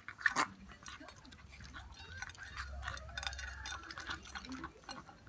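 Smooth-coat Chihuahua reverse sneezing: a series of short, noisy gasping snorts through the nose, with the loudest one about half a second in.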